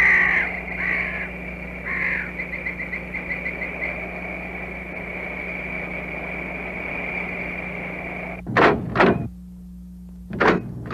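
Animal calls: three harsh descending calls about a second apart, then a quick chattering run, over a steady high-pitched drone. Near the end, two loud bangs close together, then two more.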